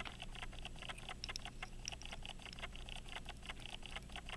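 Rapid, even clicking from a key-wound 18-size Illinois pocket watch movement, about five clicks a second.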